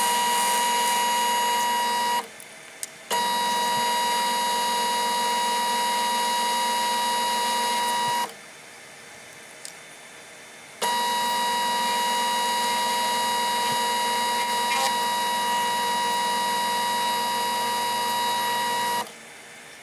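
Metal lathe running while a cutter in its spindle mills a mild steel block, a steady whine made of several fixed pitches. It drops away abruptly twice for a couple of seconds and once more near the end.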